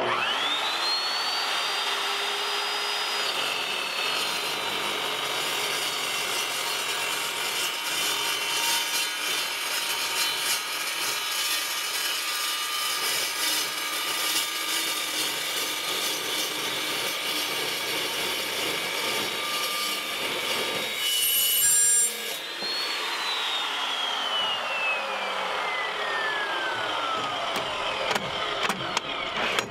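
Evolution dry-cut metal chop saw starting with a rising whine, then its carbide-tipped blade cutting through round steel tube with a steady high-pitched whine over scraping noise. About three-quarters of the way through it briefly gets louder as the blade breaks through, then the motor is let go and winds down with a long falling whine.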